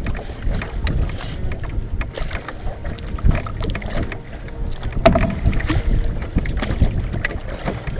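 Wind buffeting the microphone in a low, steady rumble, over water splashing and slapping against a canoe as it is paddled.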